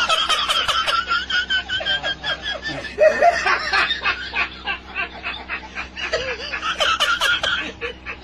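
People laughing: rapid pulsing ha-ha laughter that keeps going, with a fresh loud burst of laughing about three seconds in.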